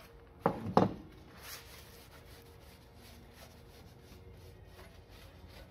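Two short knocks close together about half a second in, then faint rubbing of a cloth rag wiping down a small engine's flywheel fan.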